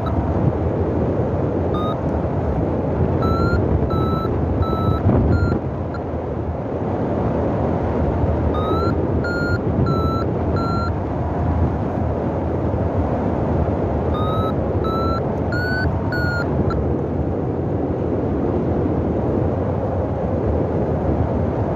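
Wind buffeting the microphone in flight, with a paragliding variometer beeping in three runs of short beeps whose pitch steps up slightly within each run, the climb tone that signals rising air.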